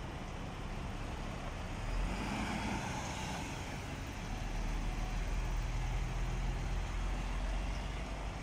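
Diesel engine of a MAN semi-truck running as the rig manoeuvres close by: a steady low rumble that grows louder about two seconds in and stays loud.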